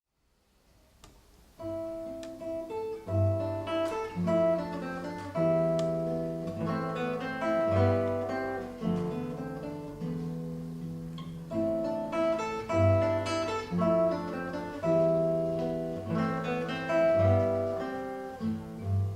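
Solo classical guitar playing, starting about a second and a half in: plucked melody notes over recurring low bass notes.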